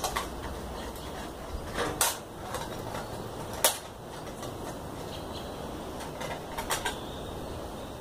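Hand-work noises as thin tying wire is threaded around a ficus root ball over a metal tray: a few sharp clicks and scrapes, the loudest about three and a half seconds in, over a steady faint background hiss.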